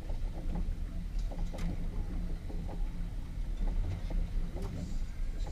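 Fishing boat at sea: a steady low rumble of water and wind against the hull, with scattered small knocks.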